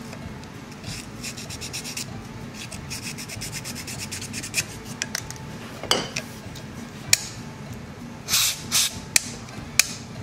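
Fine 600-grit sandpaper rubbed in quick back-and-forth strokes between the breaker-point contacts of a Suffolk Super Colt engine's flywheel magneto, cleaning sticky points to get a spark. A few sharp clicks and taps come in the second half.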